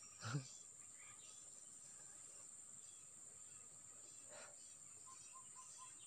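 Steady high-pitched drone of forest insects such as crickets or cicadas, with faint scattered chirps. A short voice sound comes just after the start, and four short, evenly spaced notes near the end.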